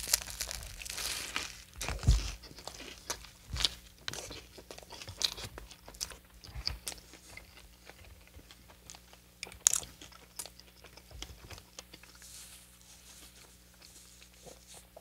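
Biting into and chewing a hot-Cheeto-crusted fried chicken sandwich, the crisp coating crunching and crackling in the mouth. The crunches are dense and loudest in the first few seconds, then grow sparser as the chewing goes on.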